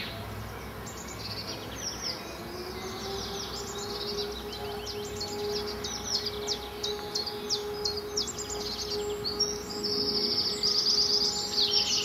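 Small birds chirping and trilling in rapid, overlapping high calls, busiest near the end. Underneath, a steady low tone glides up about a second and a half in and then holds for about ten seconds.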